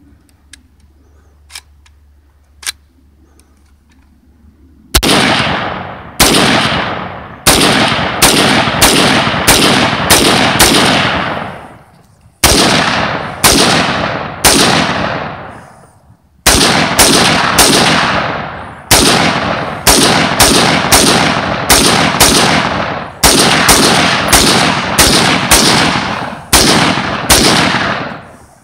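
Ruger AR-556 semi-automatic rifle in 5.56 NATO fired rapidly, about two shots a second with two short pauses, each sharp crack trailing off in an echo. A few faint clicks come in the first three seconds before the shooting starts.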